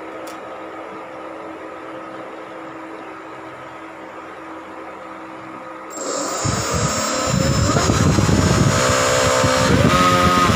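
A 2212 1000 kV brushless motor turning a 10-inch propeller spins up about six seconds in, after a quiet steady hum. It is a loud propeller whir whose pitch rises and falls as the throttle is worked.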